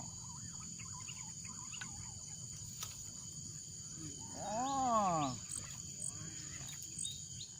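Steady high-pitched insect chorus, with one drawn-out call, rising then falling in pitch, for about a second past the middle.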